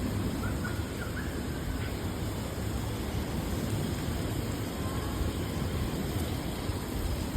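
Steady rainy city street ambience: an even hiss of rain and wet traffic over a low rumble, with no single event standing out.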